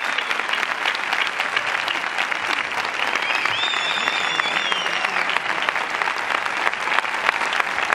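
A large theatre audience applauding steadily, with high whistles rising through the clapping about three seconds in.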